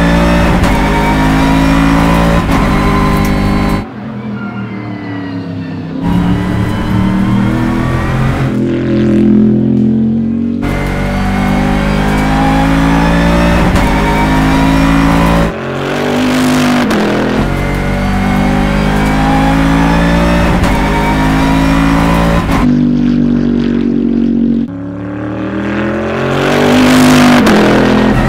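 Bentley Continental GT3 race car's twin-turbo V8 under hard acceleration, its pitch climbing and falling back as it goes up through the gears. It alternates between loud close stretches and quieter, more distant ones, and is loudest near the end as the car sweeps past close by.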